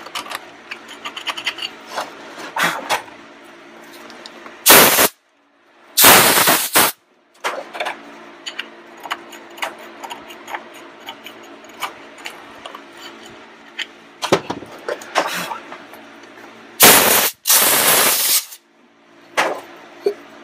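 Screwdriver scraping carbon build-up out of the variable-vane ring of a Ford 6.0L diesel turbocharger, a run of small scratchy clicks, broken by short, loud hissing blasts of compressed air from an air blow gun, two about 5 and 6 seconds in and two more near 17 and 18 seconds, clearing the loosened carbon.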